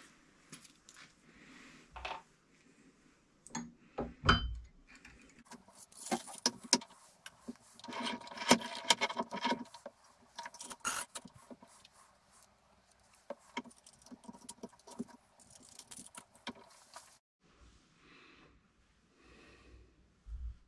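Small steel vice parts, a coil spring and steel washers, clinking and jingling as they are handled and set against the cast-iron vice during reassembly. The clatter is busiest a few seconds in and stops abruptly near the end.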